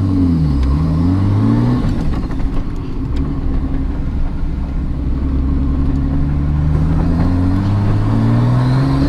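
Nissan Cefiro A31's engine and loud exhaust heard from inside the cabin as the car turns and pulls away. The revs dip at the start, climb briefly, hold steady, then rise again near the end. The driver suspects the clutch is slipping.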